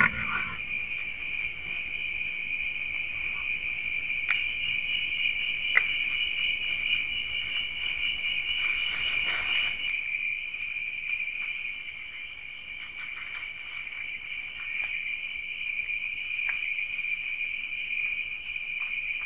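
Steady, high-pitched chorus of night insects: several shrill trills at different pitches, one of them pulsing for about the first half, with a few faint ticks.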